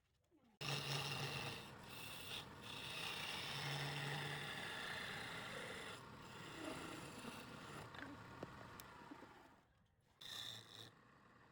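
Turning tool scraping and cutting wood as it spins on a lathe, a harsh, steady scraping. It starts abruptly about half a second in, dies away near the end, and gives one short burst after that.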